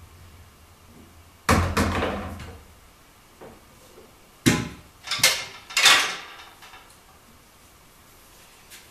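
Pool balls knocking as they settle after the break: one heavy, deep thud about a second and a half in, then three sharp clacks with ringing tails between about four and a half and six seconds in, typical of balls dropping into pockets and running down the table's ball return.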